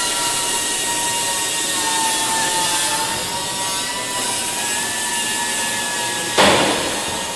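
Power drill running at high speed, drilling holes through aluminium aircraft skin. Its whine dips slightly in pitch as it bites. There is a short, louder burst of hissing noise about six and a half seconds in.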